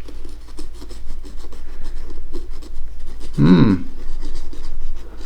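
Hands working a shoe and a tube of super glue: light rubbing and scratching with small clicks as glue is applied along the sole. A short voice-like sound comes a little past halfway, over a steady low hum.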